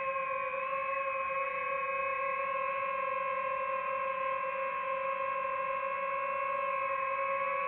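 DJI FPV drone's propellers whining at one steady pitch while it hovers.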